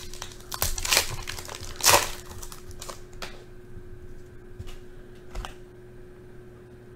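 Foil wrapper of a trading-card pack being torn open and crinkled by hand, loudest in two bursts in the first two seconds, then softer rustles and crackles as the cards are slid out.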